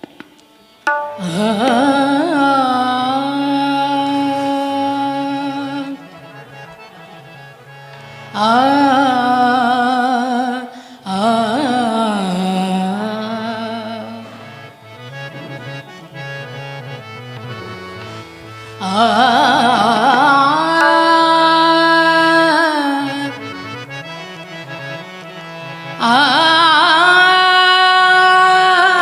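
Instrumental interlude of a Marathi devotional song. Long held melody phrases slide into their notes over a low line that steps from note to note. Each phrase lasts a few seconds, with quieter passages between them.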